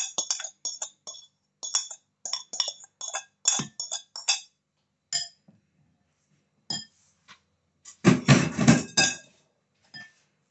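Metal spoon scraping and tapping on a ceramic plate and clinking against a glass mixing bowl, a quick run of clinks over the first four seconds or so. Then a few scattered clinks as a fork works through a crumbly filling in the glass bowl, with a louder rattling stretch of about a second about eight seconds in.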